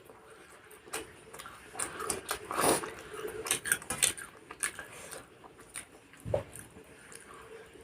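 A person eating close to the microphone: chewing with many short clicks and crackles, and small clatters of dishes, busiest a little before the middle, with one low thump about six seconds in.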